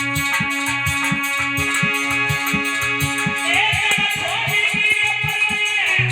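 Instrumental band music with a regular beat, plucked-string or guitar-like notes and sustained chords. A high, wavering lead melody comes in about halfway through.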